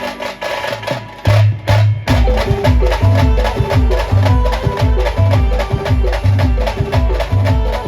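Band music: a fast, dense percussion rhythm starts as the singing stops, and a heavy, stepping bass beat comes in about a second in.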